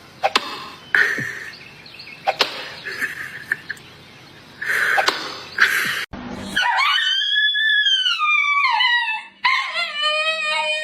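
A dog howling in two long, wavering calls, the first rising and then falling, the second lower, starting about six and a half seconds in. Before the howl come several sharp knocks and clattering.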